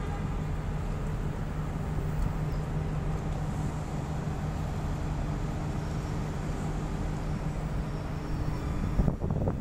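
Steady low drone of ship machinery with a constant hum, and wind buffeting the microphone about nine seconds in.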